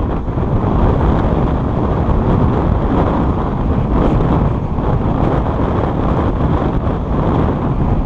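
Wind buffeting the microphone of a GoPro mounted on the outside of a moving car, a loud, steady, deep rush of noise with the car's road noise beneath it.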